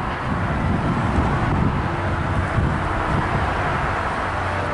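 Steady traffic noise from a nearby road, with wind rumbling on the microphone.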